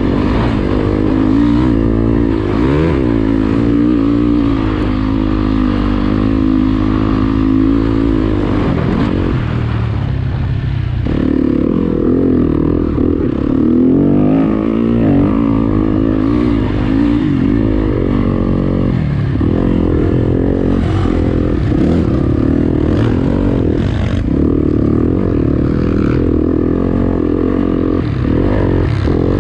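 Motocross bike engine running hard through deep sand, revving up and down as the throttle is worked. About ten seconds in it eases off for a moment, then pulls hard again.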